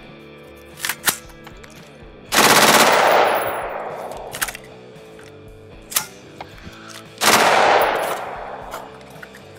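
Full-auto AR-15 with a nitride-treated barrel firing two short bursts about five seconds apart, each a rapid string of shots that trails off in echo. A few sharp clicks come between the bursts.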